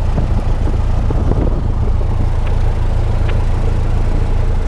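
Single-engine light aircraft's piston engine and propeller running, heard from inside the cockpit: a steady, loud, deep drone.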